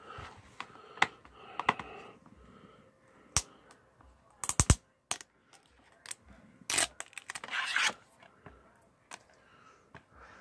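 A plastic DVD case being handled: sharp clicks and taps of the case, a quick run of louder clicks, and fingernails scratching and peeling at its edge, with two longer scraping, tearing sounds near the middle, as the security sticker is worked off.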